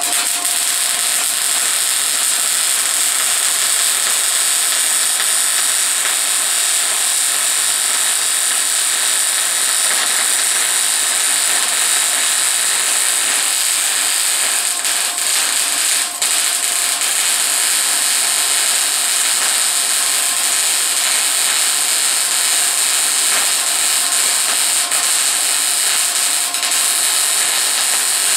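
Electric arc welder running a continuous weld on a steel tube frame: a steady hiss, with a brief break about halfway through before the arc picks up again.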